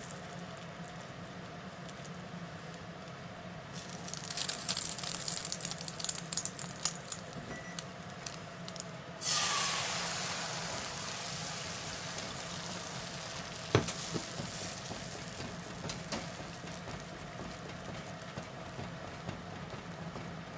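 Hot oil crackling in a frying pan. About nine seconds in, the beaten egg is poured in all at once with a sudden loud sizzle that eases into a steady sizzle as cooking chopsticks stir it, with one sharp click a few seconds later.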